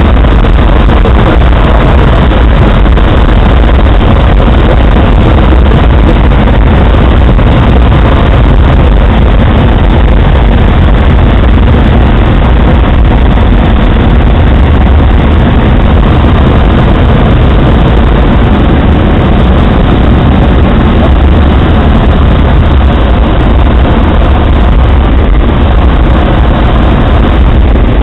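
Loud, steady rush of airflow over the cockpit of a EuroStar microlight gliding with its engine stopped for a simulated engine failure, with no engine note heard.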